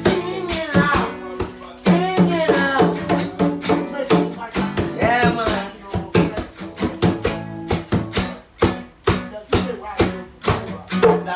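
Acoustic guitar strummed together with a tall wooden hand drum beaten by hand in a quick, even rhythm, with a man singing over them.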